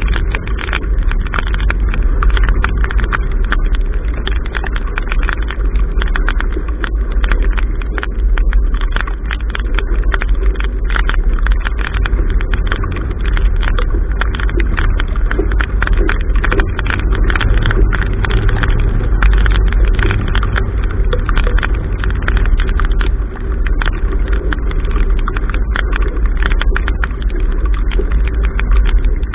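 Wind buffeting a bow-mounted camera's microphone on a sailing yacht, with a steady deep rumble and the wash of choppy water along the hull. Many small sharp ticks of water drops strike the camera throughout.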